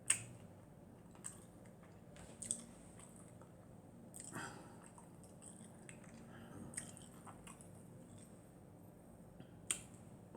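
A person eating quietly: chewing with a handful of sharp mouth clicks and lip smacks, the sharpest right at the start and another near the end.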